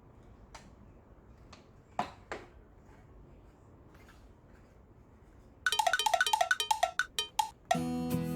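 A few faint clicks and taps. About five and a half seconds in comes a quick run of bright, bell-like chiming notes lasting about two seconds. Acoustic guitar music starts just before the end.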